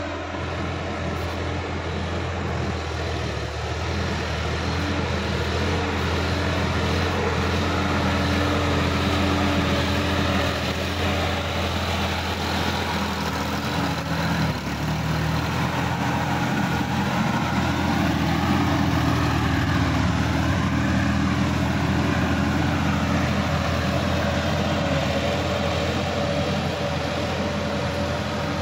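Sonalika DI-50 RX tractor's diesel engine running steadily under load as it pulls a rotary tiller (rotavator) through a flooded, muddy paddy field to puddle it. It grows louder as the tractor passes close, then eases slightly near the end.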